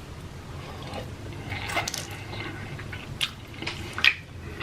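Close-up eating sounds: a person chewing soft pretzel with warm cheese dip, with scattered wet mouth clicks and smacks, the loudest about four seconds in.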